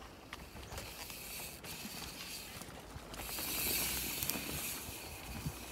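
Mountain bike rolling past close on a dirt trail: tyres on dirt and the clicking rear freewheel, rising to a loud hiss as it goes by about two-thirds of the way through.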